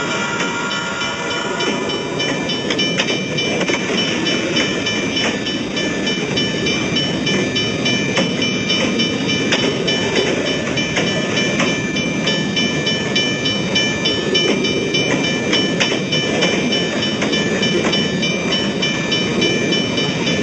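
Train passing at a railway crossing: a steady rumble with scattered clicks of wheels over rail joints, and several high steady tones ringing above it. A lower set of tones stops about two seconds in.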